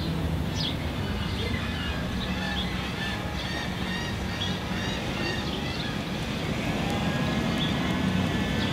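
A steady low engine hum, with short high bird chirps coming and going over it.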